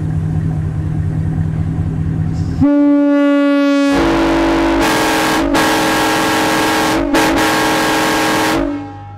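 A steady low hum, then about two and a half seconds in a Nathan M-series locomotive air horn is blown as a tuning test. A single note sounds first, and the full multi-bell chord with a hiss of air joins about a second later. The chord is held for about six seconds with two brief dips, then cuts off near the end.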